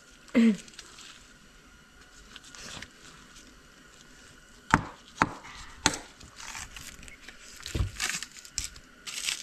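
Butcher knife cutting meat from a deer hindquarter on a stainless steel table: quiet slicing, with a few sharp clicks around the middle and a dull thump and rustling near the end as the leg is shifted.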